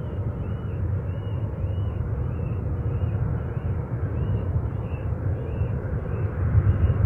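Jet aircraft engines rumbling steadily at a distance, growing louder near the end.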